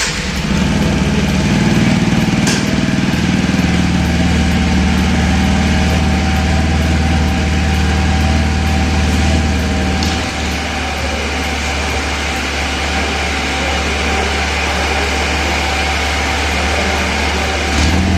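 TVS Apache RTR 160 4V's single-cylinder engine idling steadily just after being started, running on a newly replaced piston. The level dips a little about ten seconds in and comes back up near the end.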